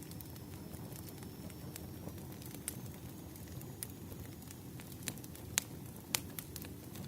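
Wood fire crackling: scattered sharp pops over a low steady rumble, with a few louder pops in the second half.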